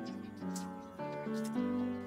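Background music: a gentle melody of held pitched notes that change about every half second.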